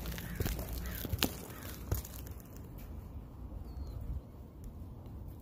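Crunching footsteps on asphalt roof shingles for about the first two seconds, then quiet outdoor air with a faint bird chirp.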